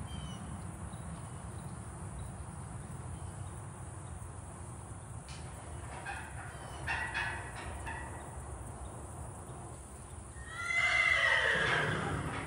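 Metal pipe arena gate being worked by hand: a few light metallic clanks from the latch, then about ten seconds in a loud hinge squeal that slides down in pitch for over a second as the gate swings.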